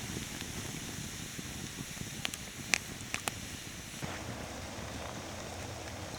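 Campfire crackling: a steady hiss with a few sharp pops around the middle, the loudest a little under three seconds in.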